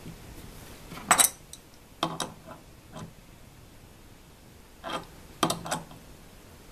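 Sharp metal clinks of a steel adjustable wrench being picked up and set against a brass valve fitting as it is tightened into a brass tee. They come in two groups, the loudest about a second in and another cluster about five seconds in.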